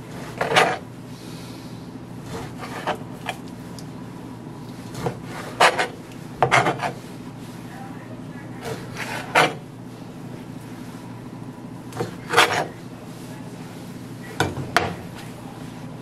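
Large chef's knife chopping raw chicken breast on a cutting board: irregular sharp knocks of the blade against the board, about a dozen, some in quick pairs, over a steady low hum.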